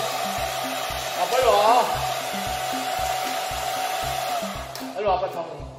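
Handheld hair dryer blowing steadily, then switched off about five seconds in. A music track with a steady beat plays underneath.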